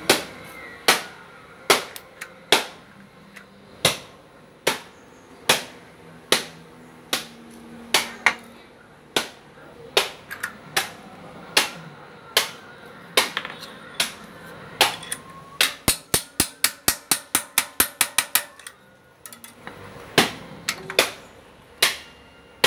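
Hammer blows on metal at the bicycle hub, driving a 6000-series ball bearing into the hub shell. Single sharp strikes come about a second apart, with a quick run of lighter taps, about five or six a second, about two-thirds of the way through, then a short pause before the strikes resume.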